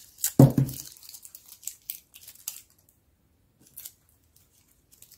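Dry, papery shallot skin crackling and tearing as it is peeled off by hand, in a quick run of short crackles over the first couple of seconds and one more later. A dull knock about half a second in is the loudest sound.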